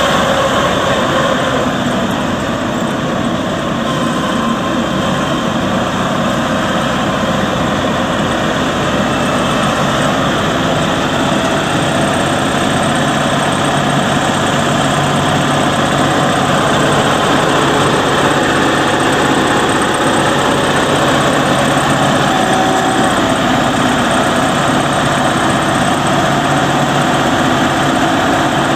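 Kubota MX5800 tractor's 61 hp Kubota diesel engine running steadily at an even level throughout.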